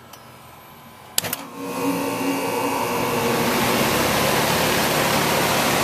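A sharp click about a second in, then an air-conditioning condenser unit starts up through an Emerson SureSwitch electronic contactor: the noise builds over a second or so and settles into a steady run with a hum. The start is smooth, without the thump of a mechanical contactor pulling in.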